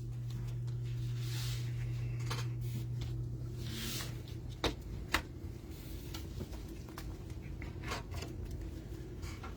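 Trading cards and packs being handled: scattered light clicks and a few soft swishes of cards and wrappers, over a steady low hum.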